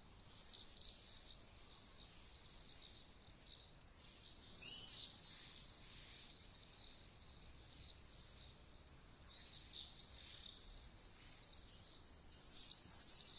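Swallows twittering: a steady stream of high, rapid chirps and warbles, with a few louder calls about four to five seconds in.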